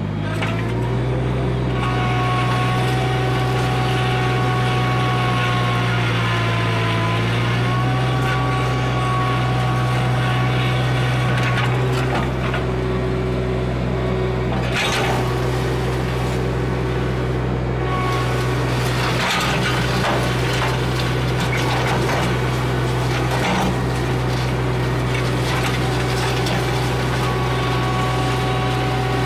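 Summit TX25 compact tractor engine running steadily under load as it pulls a ditch-digging box scraper through dirt. Its pitch sags for a moment about six seconds in, and a few sharp knocks come later.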